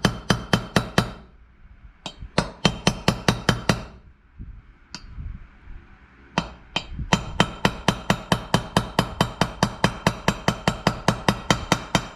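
Rapid hammer taps on metal, about four a second in three runs with short pauses between them, each strike ringing. The taps are driving a press-fit part into the engine's crankcase.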